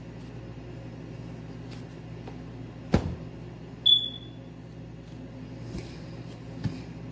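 A steady low hum with a sharp thump about three seconds in, followed a second later by a single short, high beep that fades out quickly, the loudest sound here. A softer knock comes near the end.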